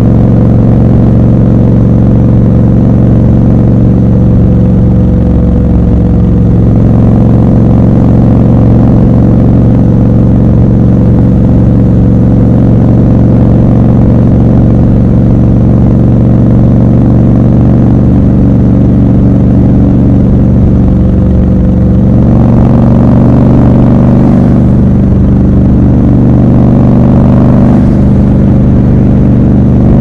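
Triumph Scrambler 1200 XC's 1200 cc parallel-twin engine running steadily under the rider while cruising. Its note swells louder and higher a few times about two-thirds of the way in as the throttle is opened.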